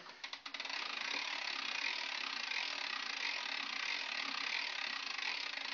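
Freeplay wind-up radio's hand crank being turned to wind its clockwork spring: the ratchet and gearing click, a few single clicks at first, then a fast, even clatter for about five seconds that stops near the end.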